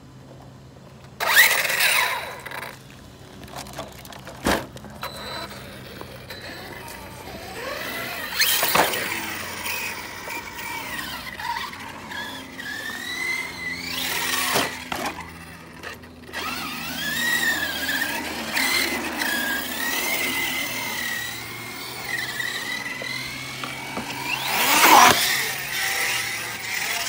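Large Arrma electric RC truck driving hard: its brushless motor whines, the pitch rising and falling with the throttle. Several short, loud bursts of noise are heard along the way, from the tyres and the hits on the ground.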